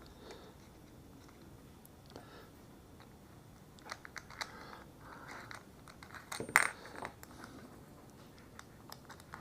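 Small clicks and taps of a wrench, a wheel nut and a plastic wheel being fitted onto a wheel hex of an RC buggy. The clicks come more often from about four seconds in, with one sharp metallic clink about six and a half seconds in.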